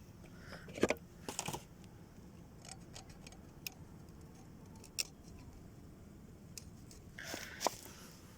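Metal engine parts being handled: a few scattered sharp clicks and short metallic clinks, with a small cluster near the end.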